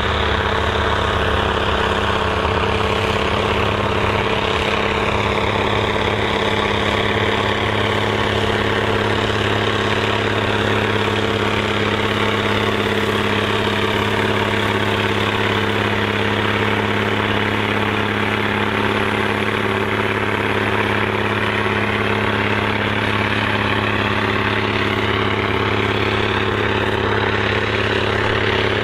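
Large farm tractor engine running steadily while pulling a cultivator through a field.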